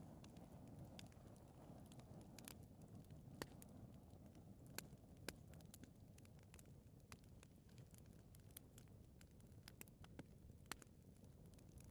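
Faint fire in a fireplace: a steady low rumble of flames with sharp crackles and pops scattered about once a second.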